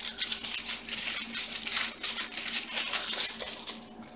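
Thin clear plastic packaging, small bags of diamond-painting drills and a plastic sleeve, crinkling as hands handle it. It dies down just before the end.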